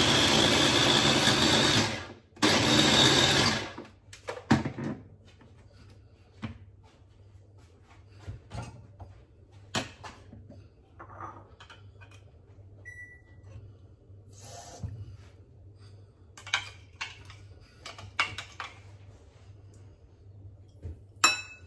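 Electric mini food chopper grinding prawn heads with a little water: its motor runs for about two seconds, stops briefly, runs again for over a second, then cuts out. After that come scattered clinks and knocks as the glass bowl is taken off and handled.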